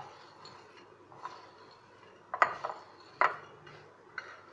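A spoon stirring crisp fried, spice-coated chickpeas in a glass bowl: the dry chickpeas rustle and rattle, with a few sharp clinks of the spoon against the glass, two of them loudest a little past halfway.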